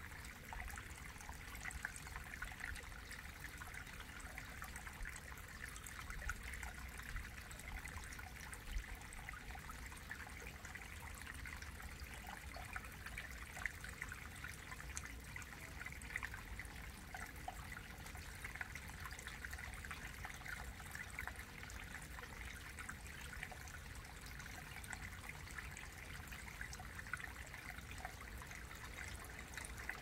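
Small mountain stream trickling steadily into a shallow rock pool, a faint, even rush of running water with small splashes.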